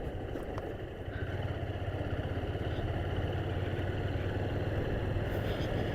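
Motorcycle engine running while riding, a steady low hum with a quick even pulse that grows a little louder after about a second.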